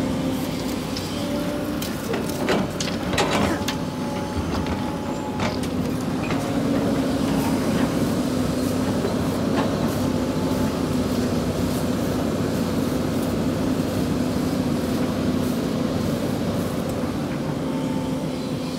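Sany hydraulic excavator's diesel engine running steadily, a constant drone with a few knocks and scrapes over it in the first few seconds.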